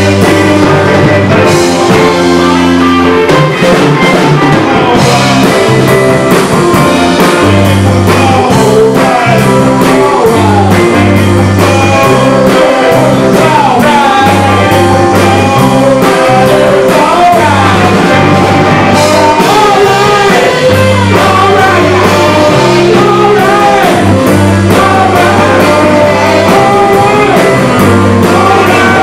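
Live rock band playing loud: two electric guitars, an electric bass and a drum kit, with a man singing over them.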